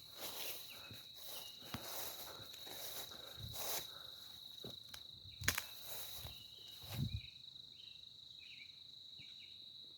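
Footsteps crunching on the woodland floor, irregular, stopping about seven seconds in, over a steady high-pitched insect drone.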